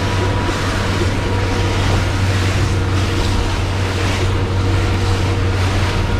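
Motorboat running at speed: a steady low engine drone under the rush and splash of water thrown off the hull, with wind noise.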